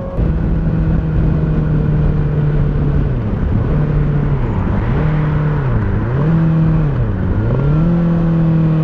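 Kawasaki ZX6R inline-four sport bike running through an M4 GP19 aftermarket exhaust with its dB-killer insert, heard from the moving bike with wind noise. The note holds steady, then drops and climbs back three times in the second half as the throttle is eased off and reopened, a deep, bassy note on deceleration.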